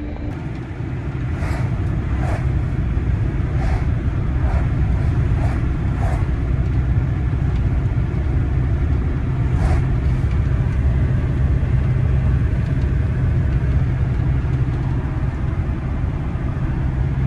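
GAZelle Next delivery van driving at road speed, heard inside the cab: a steady low drone of engine and tyre noise. A handful of short clicks come in the first ten seconds or so.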